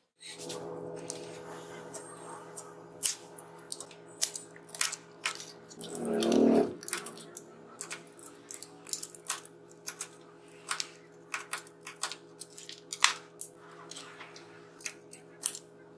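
Utility knife cutting and scraping through coarse 60-grit sandpaper around the edge of a wooden sanding-drum disc: a dense string of sharp crackling clicks and scrapes. A louder rustle comes about six seconds in, over a steady background hum.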